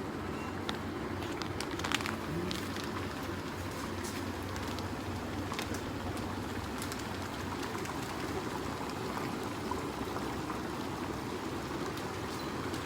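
Water boiling in an automatic noodle-cooking machine: a steady bubbling with scattered small pops over a faint low hum.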